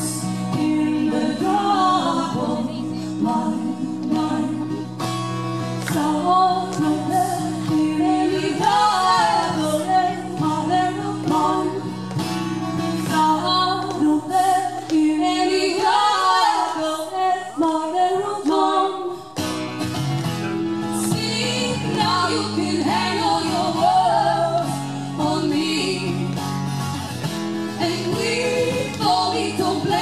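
Live music: female voices singing over guitar. The low guitar accompaniment drops away for about five seconds past the middle, then comes back in.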